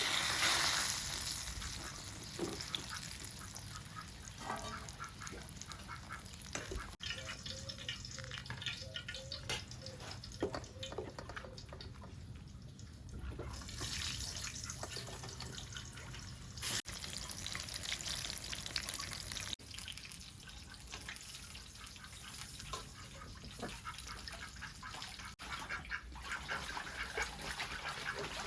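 Ducks quacking over the sound of water.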